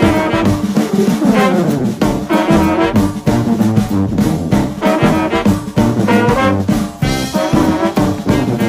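Background music: an upbeat jazzy brass tune, trombone and trumpet over a steady beat.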